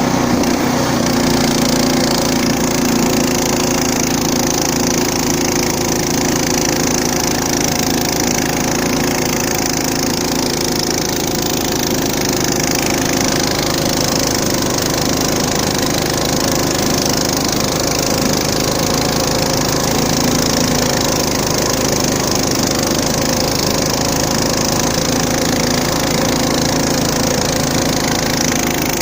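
The small engine of a SunGarden Tornado 2460 running steadily at an even speed.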